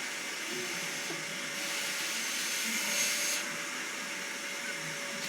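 Vacuum cleaner running steadily with a constant hum. Its hiss grows louder from about a second and a half in and drops back abruptly at about three and a half seconds.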